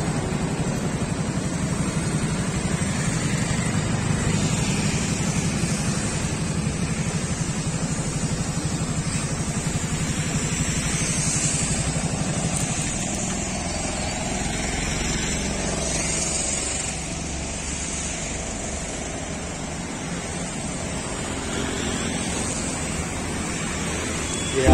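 Road traffic passing on a city street: a steady mix of car and motorcycle engines and tyre noise with a low, constant hum, easing slightly about two-thirds of the way through.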